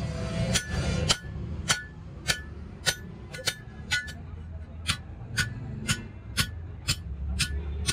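Hand hammer striking a steel strap bracket on a steel anvil block, about two sharp ringing metal-on-metal blows a second as the bracket is shaped.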